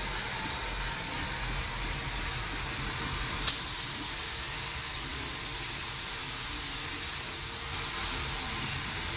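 A steady hiss, with one short sharp click about three and a half seconds in.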